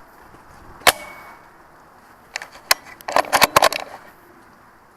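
Airsoft sniper rifle firing once about a second in, a sharp crack with a brief ringing tone after it. A quick run of sharp clicks and snaps follows about a second later.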